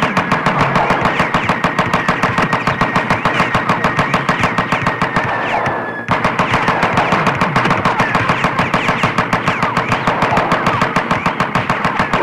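Automatic gunfire: a fast, steady rattle of shots that breaks off briefly about six seconds in and then resumes.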